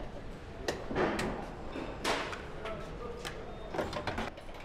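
Factory assembly-line noise: a steady low hum with irregular clicks and clanks of parts and tools being handled, the loudest about one and two seconds in.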